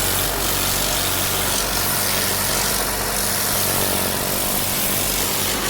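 Pressure washer running steadily, its motor humming under the loud hiss of the water jet as it blasts weeds out of cracks in concrete.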